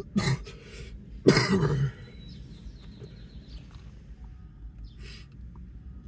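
A person coughing twice close to the microphone: a short cough, then a longer, louder one about a second later.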